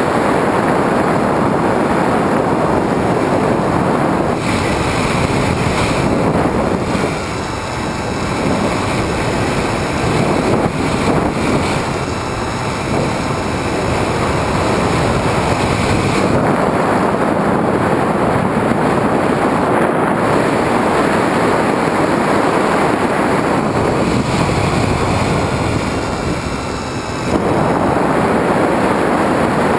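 Airflow rushing over the onboard camera of a Skywalker FPV model plane in flight. The faint whine of its electric motor and propeller comes and goes, present from about four seconds in until about sixteen and again near the end.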